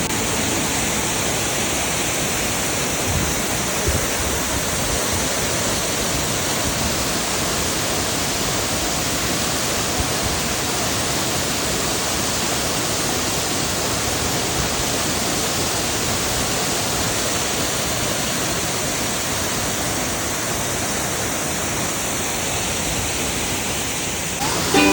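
Waterfall cascading, a steady roar of rushing water.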